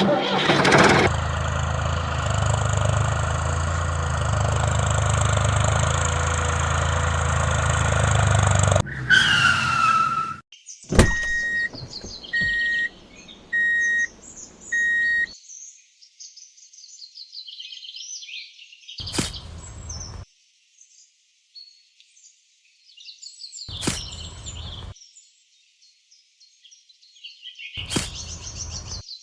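A steady engine-like running sound for about nine seconds, then a falling whistle-like glide and four short, evenly spaced beeps. After that, birds chirp, broken by three brief bursts of noise.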